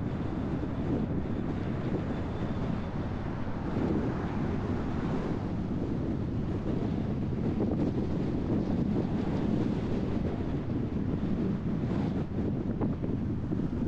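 Steady low road and wind noise from a moving car, with wind rumbling on the microphone.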